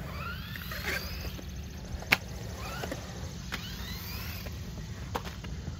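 Hosim 1/16-scale RC truggy's battery-powered electric motor whining, rising in pitch several times as the car accelerates. A single sharp knock about two seconds in.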